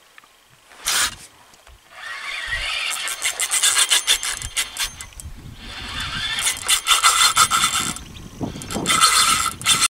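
Spinning reel rasping and clicking in surges while a hooked fish is played on the rod, after a short loud rush about a second in.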